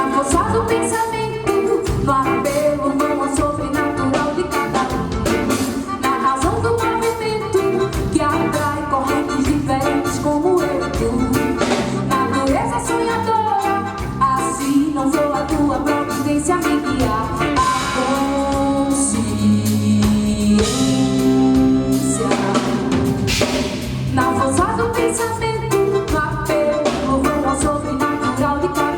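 Live band music: drum kit and percussion keeping a steady groove under electric guitar and keyboards, with a melodic lead line over them.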